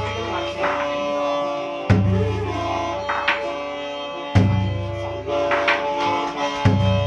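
Hmong qeej, a bamboo free-reed mouth organ, sounding sustained reed chords with a wavering melody, while a large drum is struck three times, about every two and a half seconds, each deep boom ringing on.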